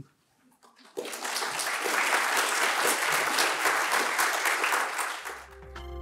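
Audience applauding, starting about a second in and fading out near the end. Outro music with a low drone and chiming notes comes in as the applause dies away.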